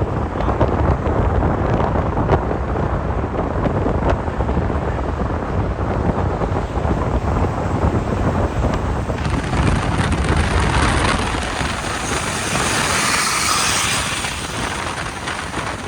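Steady, loud rumbling noise of a moving vehicle, with wind buffeting the microphone; no horn is heard.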